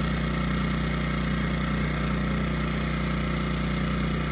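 Energizer eZV2000P inverter generator running steadily in eco mode with no load, heard right at the unit.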